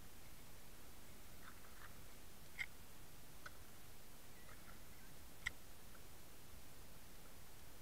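Underwater ambience picked up by a submerged camera: a faint steady hiss with two sharp clicks about three seconds apart and a few fainter short ticks and chirps between them.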